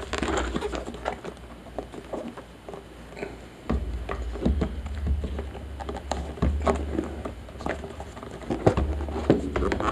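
Hands gripping and working at the tight-fitting lid of a rigid cardboard box: scattered scrapes, taps and rubbing of cardboard against fingers. A low rumble comes in about four seconds in.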